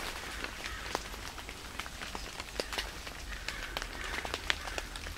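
Water drops falling from a tree canopy onto leaves and leaf litter: scattered, irregular ticks and pats with no rain falling. The drops come from fog and ambient moisture condensing on the leaves.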